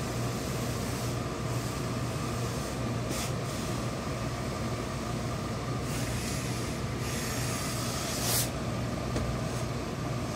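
Hose-fed industrial steam iron pressing a suit trouser leg, letting out several short hisses of steam: one about 3 seconds in, a longer one around 6 seconds and a sharp one just past 8 seconds. A steady low hum runs underneath.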